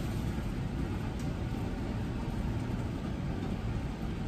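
Steady low rumble with a faint hiss: kitchen background noise, with one faint tick about a second in.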